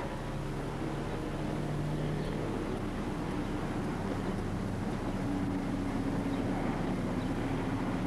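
A machine engine running steadily, a low drone with a hum, most likely the asphalt crack sealer's engine.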